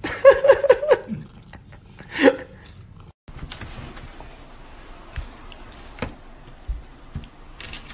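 A cat vocalizing while its back is scratched: a quick run of short pitched calls in the first second, then one more call about two seconds in. After a cut, rustling and scuffling with several knocks as a cat rolls off a table.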